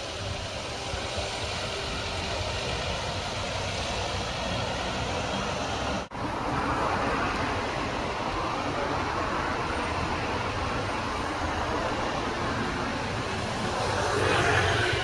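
Steady city street traffic noise, with a brief dropout about six seconds in and a slight swell near the end.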